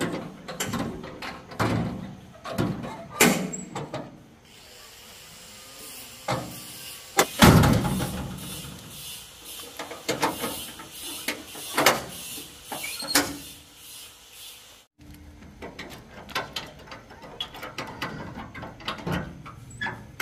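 Irregular metal knocks and clanks from the steel tailgate of a small dump truck as it is swung shut and latched, with the loudest bang a little before the middle.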